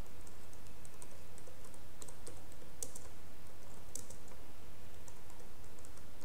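Typing on a computer keyboard: light keystrokes at an uneven pace over a steady low hum.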